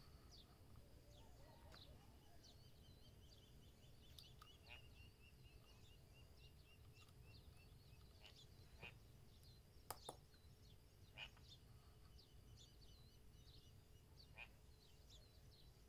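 Near silence: faint room tone with faint distant bird chirps and a few soft clicks.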